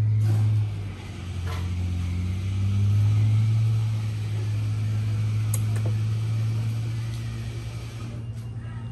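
A steady low hum from a motor or engine. It dips briefly about a second in, then settles back.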